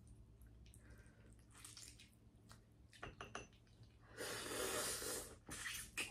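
Crab-leg eating: faint small clicks of shell, then a loud sucking noise about a second long, as she tries to suck stuck meat out of a crab claw.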